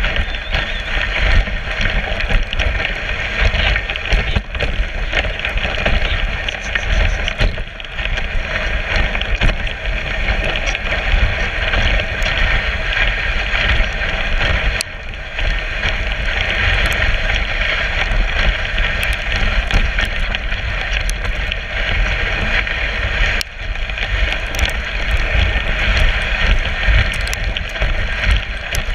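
Dog sled runners sliding over packed snow: a steady, loud scraping hiss with scattered small clicks, over a low rumble of wind on the microphone.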